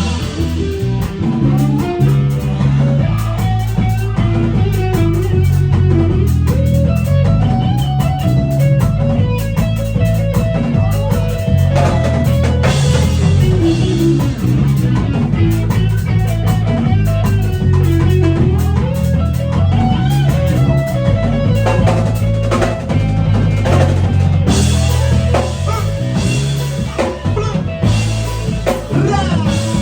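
A band playing an instrumental passage of a love song: guitar lines over a drum kit and a deep, steady bass line.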